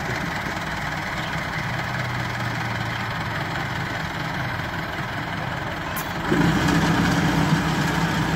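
Tractor diesel engine running steadily, then revving up and getting louder about six seconds in as the front loader lifts a log in its bucket.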